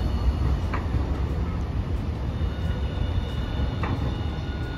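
Hiroshima Electric Railway articulated low-floor trams running over street track on a curve: a steady rumble of steel wheels on the rails, with faint high squealing tones from the wheels taking the curve that fade and return.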